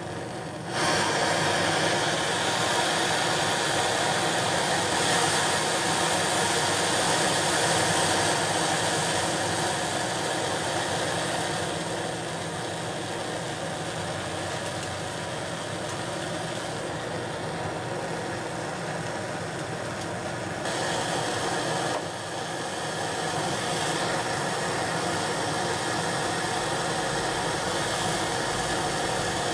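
BRS-3000T titanium canister stove burner running: a steady rushing roar of burning gas that gets louder about a second in.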